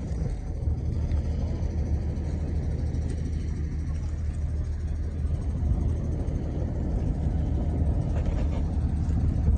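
Mercedes Unimog truck's diesel engine running steadily.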